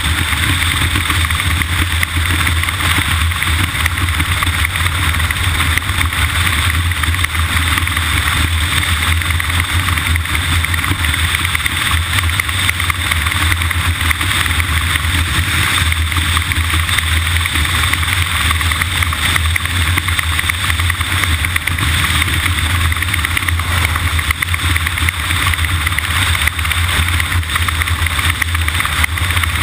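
Steady engine noise with a constant low hum under an even hiss. The pitch stays level throughout, with no revving.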